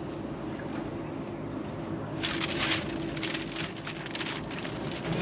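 Car engine and road noise heard from inside the cabin, steady. From about two seconds in, paper crackling and rustling as a road map is unfolded.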